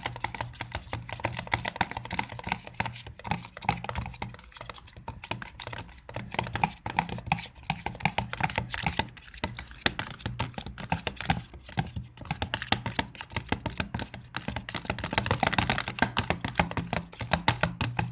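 Shaving foam being stirred into slime glue in a pot: rapid, irregular sticky clicking and crackling, over a steady low hum.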